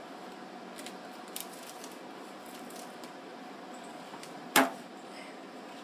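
A single sharp wet slap about four and a half seconds in as a raw chicken breast is dropped into an aluminium foil pan of dressing, with a few faint handling clicks before it.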